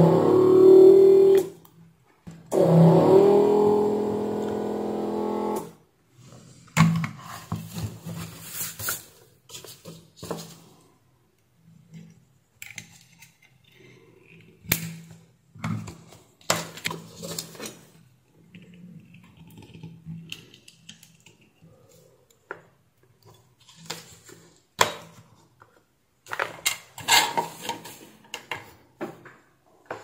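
Electric desoldering gun's vacuum pump buzzing in two bursts, about one and three seconds long, as it sucks solder off the PFC MOSFET's legs on a power-supply board. Scattered clicks and knocks follow as the circuit board and tools are handled, over a low steady hum.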